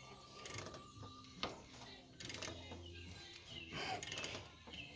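A few scattered light metallic clicks and knocks of a hand wrench as the small-block Chevy's crankshaft is turned over by hand to find top dead centre on cylinder 1, over a faint steady hum.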